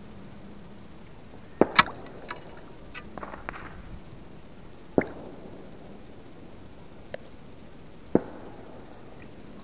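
Sharp knocks as a pole fish spear is worked among water plants and the bottom: a quick double knock a little under two seconds in, single knocks at about five and eight seconds, and fainter clicks between them, over a steady low hiss.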